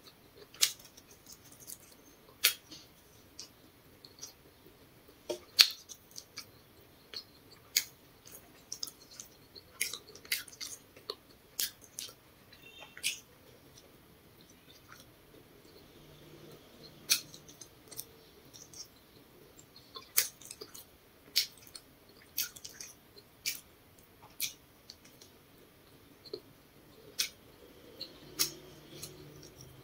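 A person chewing grilled potato close to the microphone, with sharp, irregular mouth clicks and lip smacks.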